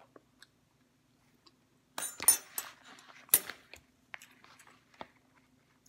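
A plastic food pouch crinkling and crackling as it is handled, in two loud bursts about two and three and a half seconds in, with small clicks and soft chewing around them.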